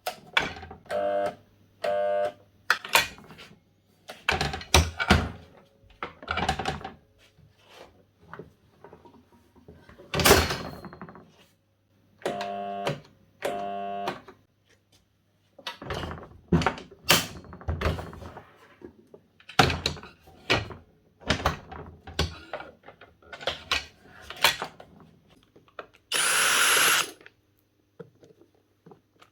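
DeWalt DW743 flip-over saw's induction motor switched on in several short bursts of about a second, each time only humming without starting: the sign of a failed start capacitor. Knocks and clunks of the saw being handled come between the bursts.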